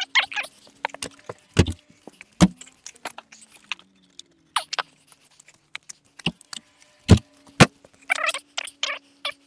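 Metal tools and parts clinking and knocking as they are handled, with several sharp knocks a few seconds apart, the loudest about seven seconds in. Short chattering bursts come near the start and again near the end.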